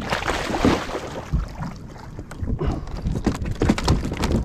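Choppy sea water slapping and splashing against a kayak's hull, with wind rumbling on the microphone, a louder rush of splashing in the first second and scattered short knocks and clicks.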